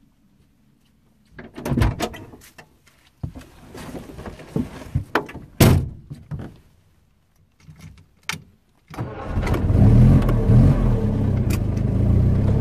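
A series of knocks and rattles inside the cabin of a 1960 Moskvitch 407, then about nine seconds in its four-cylinder engine starts and runs at a steady idle.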